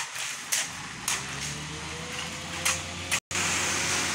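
Engine of a ready-mix concrete truck running steadily, with a few short sharp clacks over it. The sound cuts out for a moment about three seconds in, then comes back as a steadier, louder hum.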